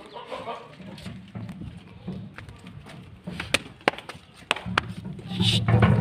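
Goats jostling close together at a wooden rail: rumbling, shuffling contact noise with a few sharp knocks in the middle. A couple of short high calls, like crows cawing, come near the end.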